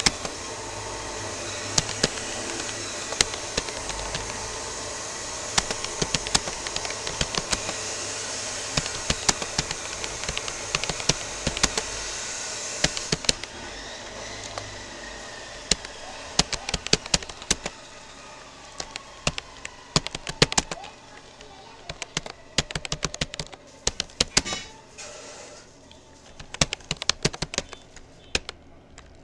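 Keystrokes on a Rapoo computer keyboard during touch-typing: irregular runs of sharp clicks, several a second. They sound over a steady hiss that fades out about halfway through.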